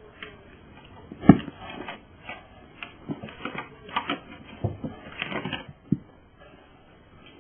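A cat batting and scrabbling at a cat teaser toy: irregular taps, scratches and knocks, with one sharp thump about a second in and a cluster of quicker taps in the middle.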